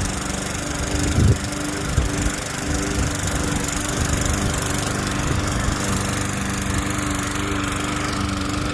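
Toro self-propelled walk-behind lawn mower's small engine running steadily at cutting speed while being pushed across grass, with a couple of low bumps about a second in.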